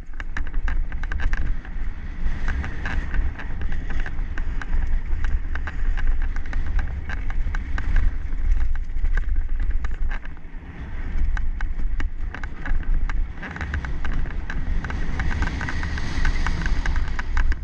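Downhill mountain bike ridden fast down a dirt trail, heard from a camera on the bike or rider: wind buffets the microphone with a heavy rumble, under a constant rattle and clatter of chain and frame over the bumps. A louder hiss of tyres on loose dirt comes in near the end.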